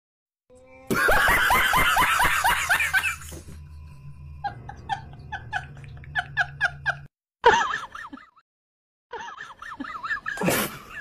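Bursts of laughter: a loud run of rapid, high-pitched ha-ha sounds about a second in, then quieter runs of laughter later.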